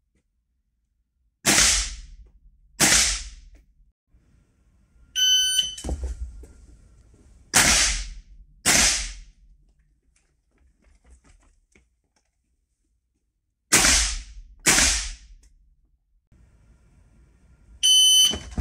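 Three pairs of shots from a Stgw 90 (SIG 550) 5.56 mm rifle, the two shots of each pair about a second apart. A shot-timer beeps shortly before the second pair and again near the end.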